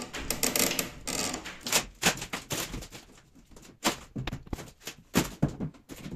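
Crowbar and claw hammer prying at an old wooden wardrobe's panels: irregular sharp clicks, cracks and knocks of steel on wood. The clicks come thickly for the first couple of seconds, then thin out to a few single knocks.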